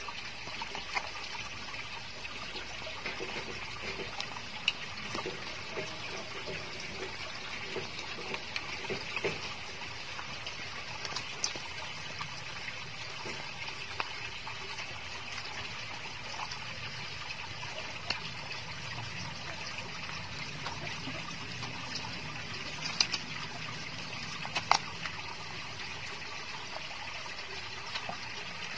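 Several puppies suckling at their mother's teats: steady wet suckling and smacking, with a few sharper clicks.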